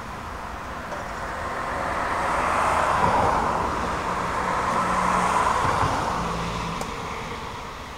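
A car passing on the road: tyre and engine noise swells over a couple of seconds, stays up through the middle, and fades away again.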